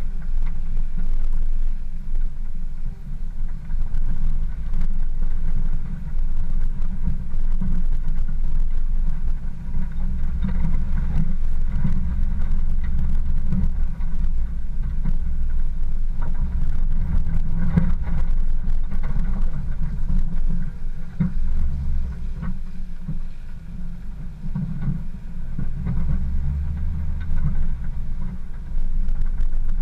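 Low, continuous rumble of an off-road vehicle driving slowly over a rutted dirt track. The level swells and dips with the terrain, and scattered knocks come from jolts over the rough ground.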